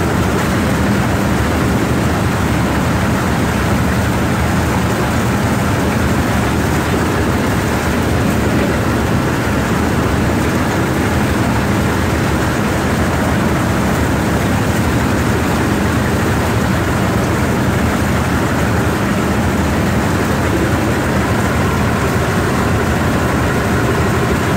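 Motorized rice thresher running steadily, a loud even drone, as bundles of rice stalks are fed into it to strip the grain.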